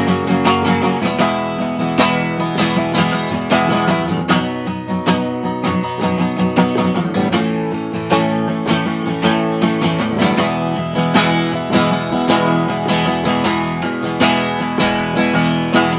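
Gibson steel-string acoustic guitar strummed in quick, even strokes, chords ringing on through an instrumental passage.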